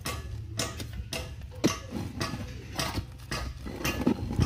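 Irregular clicks, knocks and rustles of small tools and materials being handled while a submersible pump's flat cable joint is made, over a steady low hum.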